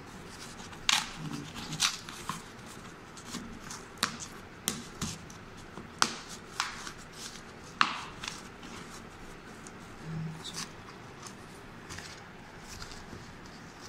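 Corrugated cardboard shipping box handled and pried at by hand: irregular sharp crinkles, creaks and scrapes of the cardboard flaps being worked open.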